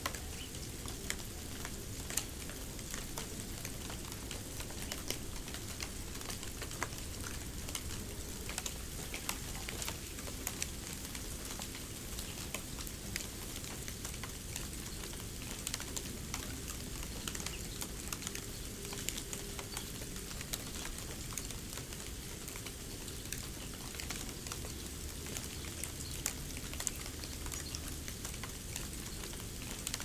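Snow sounds: a steady fine crackle with many small, irregular ticks and pops scattered through it, with no regular rhythm.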